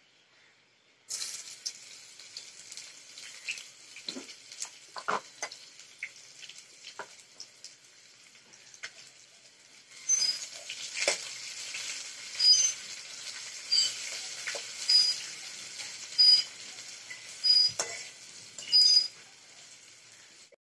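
Onions sizzling as they fry in hot oil in an aluminium pot, the sizzle starting about a second in. From about ten seconds in a steel spatula stirs them, scraping and clinking against the pot roughly once a second.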